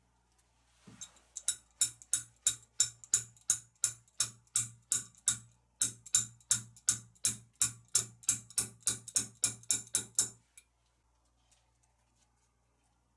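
Metal adjustable wrench used as a hammer, knocking a wall plug into its drilled hole in the wall: a steady run of sharp knocks, about three a second, that stops about ten seconds in.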